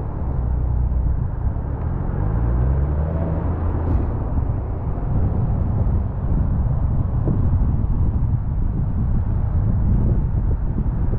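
Car driving, with steady low engine and road noise; about two seconds in the engine note rises for a couple of seconds as it speeds up.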